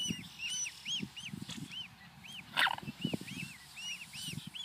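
Mute swan cygnet peeping over and over, a string of short arched chirps about three a second. Low thumps of handling run under it, with one brief louder noise about halfway.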